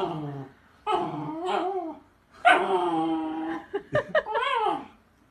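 A dog whining and yowling in drawn-out cries that waver in pitch, about four in a row with short pauses between them.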